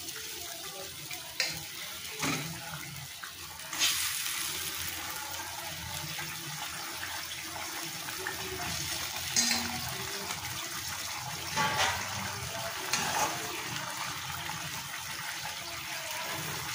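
Thin fish gravy boiling in a wok, a steady bubbling, with a few short splashes and knocks as fried fish pieces are slid into it.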